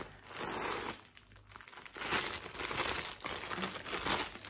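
Packaging crinkling as a yarn cake is handled and taken out, in two spells of rustling.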